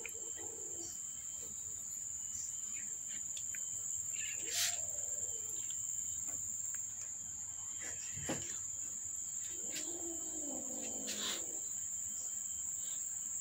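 Steady high-pitched insect chirring, like crickets, runs throughout. Two faint drawn-out cat mews come about a third of the way in and again near the two-thirds mark, with a couple of light taps.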